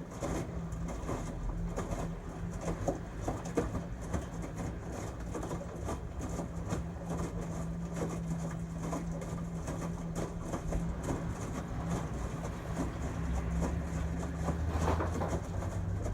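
LG Tromm WD-CR101C front-loading drum washing machine in its quick-wash cycle: the drum turning over wet laundry with irregular sloshing and thudding over a steady motor hum. A deeper low rumble builds near the end.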